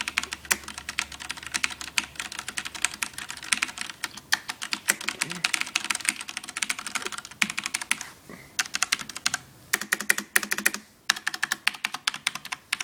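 Fast typing on a Rosewill RK-9000BL keyboard with Cherry MX Black switches: no click, just the plastic clack of keys bottoming out. There are short pauses about eight and eleven seconds in.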